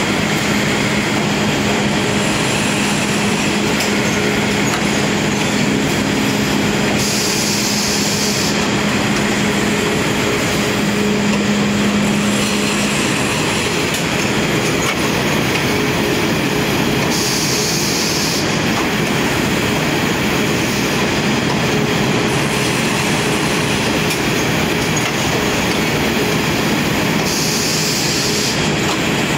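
Aluminium can palletizer and conveyor line running: a loud, steady mechanical clatter of machinery and empty cans, with a low hum. A short hiss comes three times, about ten seconds apart.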